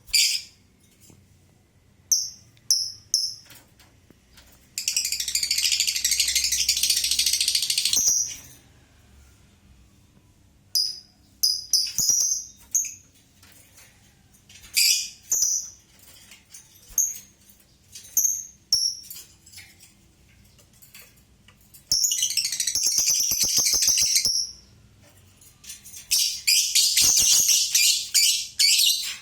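Lovebird singing its ngekek song: three long, rapid, shrill chattering trills of about three seconds each, about five, twenty-two and twenty-six seconds in, between short sharp chirps.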